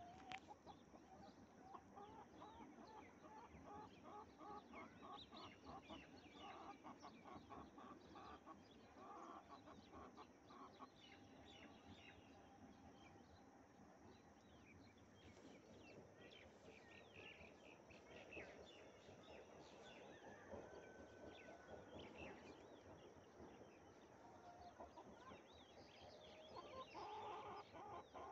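Domestic hen clucking faintly, in quick runs of short clucks a few seconds in and again near the end.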